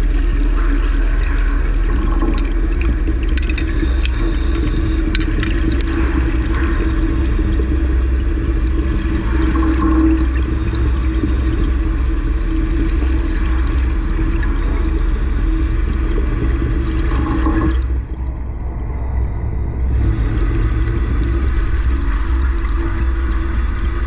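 Underwater recording with a steady low rumble and hum. Bubbling gurgles come every few seconds, typical of a helmeted diver's exhaust bubbles, with a lull about eighteen seconds in.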